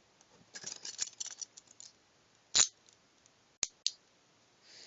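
Hinged metal handcuffs being handled: a light metallic rattle of small clicks, then a single sharp click about two and a half seconds in and two lighter clicks about a second later.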